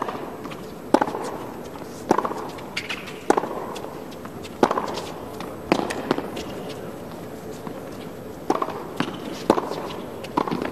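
Tennis ball struck back and forth in a baseline rally on a hard court: sharp racket-on-ball hits about a second apart, with a short pause in the hitting near the middle.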